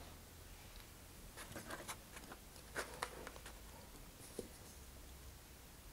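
Faint handling noises: a few light clicks and scratchy rustles as hands shift vacuum-formed plastic fairings on a cardboard rocket body tube in a cardstock alignment jig.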